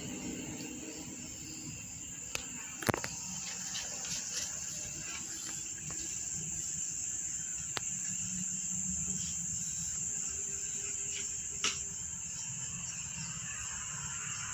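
Steady high-pitched insect drone with a low background hum and a few sharp clicks, the loudest about three seconds in.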